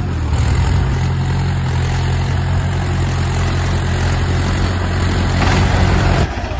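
Small engine of a miniature homemade tractor running steadily as it drives, breaking off suddenly near the end.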